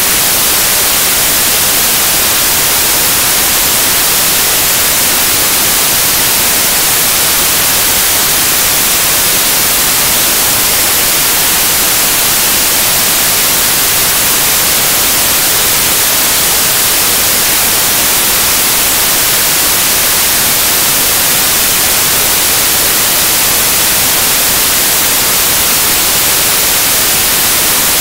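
Loud, steady static hiss like white noise, starting abruptly out of silence and strongest in the treble, with nothing else heard in it.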